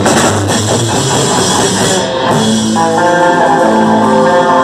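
Death metal band playing live: heavily distorted electric guitar and bass over a drum kit. About two and a half seconds in, the fast, dense playing gives way to long held guitar notes.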